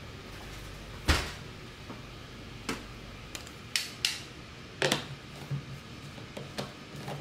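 Sharp clicks and knocks of a plastic protein shaker bottle's lid being handled and screwed on, about eight separate clicks with the loudest about a second in and another near 5 s.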